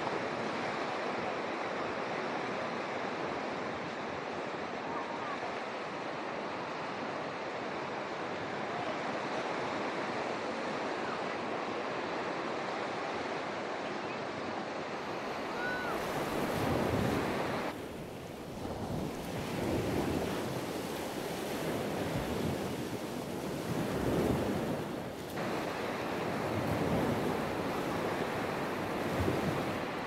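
Small sea waves washing onto a sandy beach, a steady surf hiss. From about halfway, wind buffets the microphone in uneven gusts.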